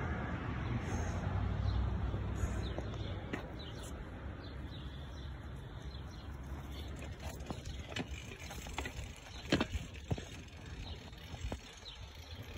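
Outdoor ambience: a low rumble of wind on the microphone for the first few seconds, then quieter, with scattered light clicks and knocks and a few faint chirps.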